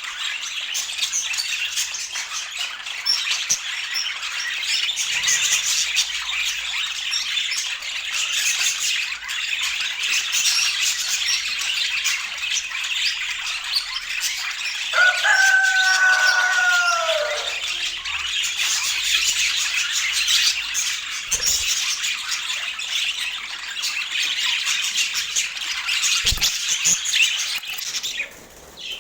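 Dense chorus of many small birds chirping and chattering together. About halfway through, one longer, lower call with a slightly falling pitch rises above the chorus. The chorus drops away near the end.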